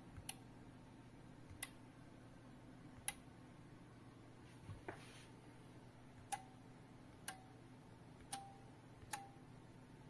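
Relays inside a Wi-Fi smart power strip clicking as its outlets are switched on and off from a phone app: seven sharp single clicks at uneven intervals, the last four each with a short ringing tail.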